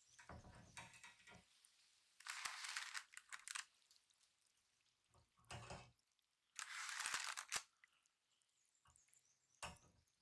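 Metal offset spatula scraping under baked chocolate cookies on parchment paper and setting them down on a wire cooling rack. There are two longer scraping passes, with shorter scrapes, soft thuds and light clicks between them.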